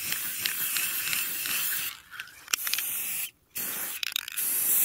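Aerosol can of Rust-Oleum 2X gloss black spray paint hissing in spells as it coats ceramic tiles, with short breaks about two seconds in and again about three and a half seconds in.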